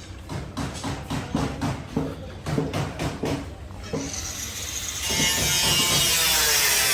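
Voices talking, then a steady hiss that starts about four seconds in and turns loud and even about a second later.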